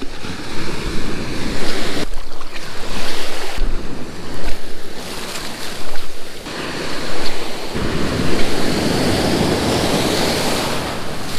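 Small ocean waves breaking and washing up a sandy beach, foam hissing as it spreads and drains, with wind rumbling on the microphone. The level and tone of the wash shift abruptly several times.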